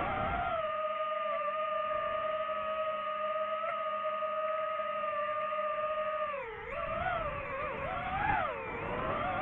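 DJI FPV quadcopter's motors and propellers whining at a steady pitch while it hovers. About six seconds in the pitch dips, then swings up and down as the throttle changes in flight.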